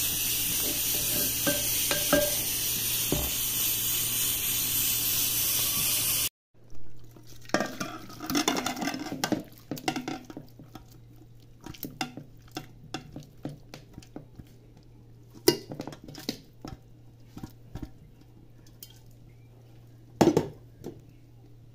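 Spaghetti sizzling in an iron pot while a spoon stirs it, with light clinks against the pot. After a sudden cut, metal-on-metal scrapes and clinks as meat and cassava are tipped from a pressure cooker into an aluminium pan, with two sharper clinks near the end.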